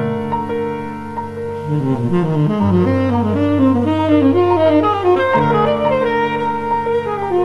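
Tenor saxophone and piano duo playing a jazz-inflected film score. A quick, winding melodic line rises and falls over held low piano notes, and a new chord comes in about five seconds in.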